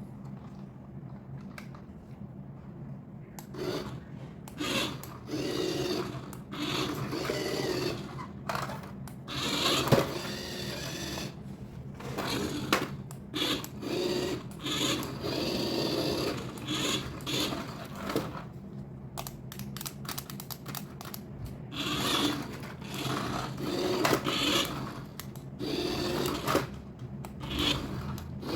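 Small electric toy motor and gears whirring in repeated short bursts of about a second each, over a steady low hum.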